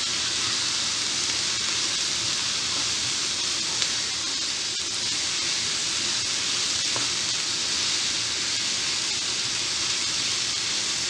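Chopped onions, carrot, green pepper and tomato sizzling in a frying pan as they are stirred with a wooden spatula: a steady frying hiss with a few faint clicks.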